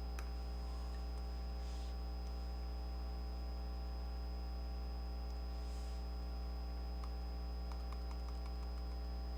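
Steady electrical mains hum with its stack of overtones and a thin high whine, with a few faint clicks near the end.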